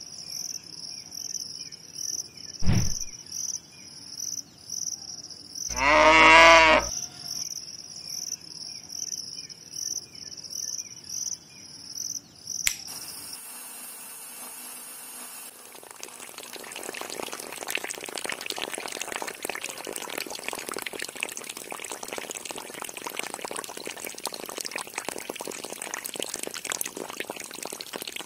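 Crickets chirping in fast, even pulses, with a short low thud about three seconds in and a cow mooing once around six seconds in. About halfway through the chirping stops and water starts pouring steadily from the mini pump's hose into the flooded plot.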